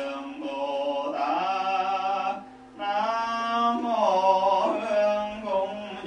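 Music: a male voice singing a slow melody over a steady low drone, with a short break between phrases about two and a half seconds in.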